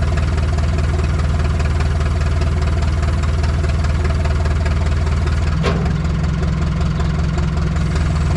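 An engine or motor running steadily with a deep hum. About five and a half seconds in, a brief falling squeak is heard and the hum changes slightly.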